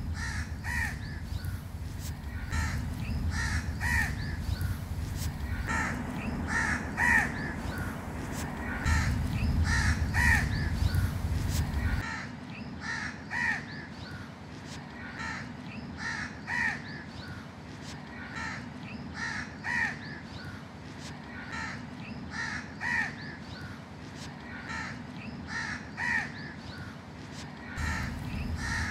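Crows cawing over and over, short harsh calls coming every second or two, sometimes from more than one bird in quick succession.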